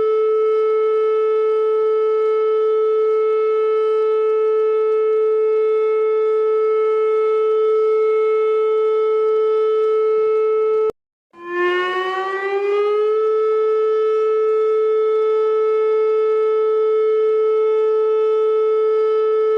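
Siren sounding an alert, holding one steady pitch, then cutting out abruptly about eleven seconds in and gliding back up to the same pitch over about two seconds before holding steady again.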